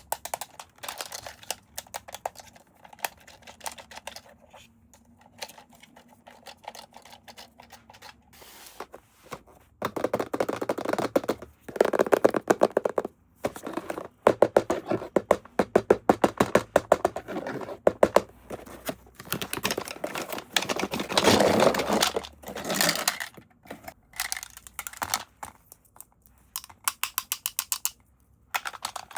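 Rapid clicking and rattling of hard plastic, with thunks and scrapes, as an electric toy and its packaging are handled. Scattered clicks at first, then long dense spells of fast clicking through the middle.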